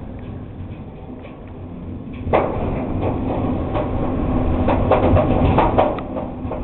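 Storm-force wind rumbling and banging in a building's bathroom: a low steady rumble, a sudden bang a little over two seconds in, then a run of knocks and clatters. Very loud; it sounds like a bowling alley.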